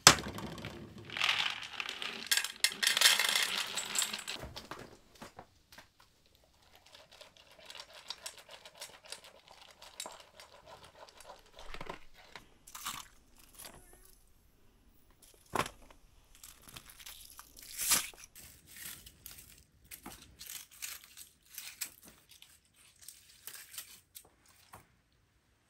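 Rustling and crinkling handling noise, loudest and densest for the first four seconds or so, then quieter scattered rustles with a few sharp clicks and taps.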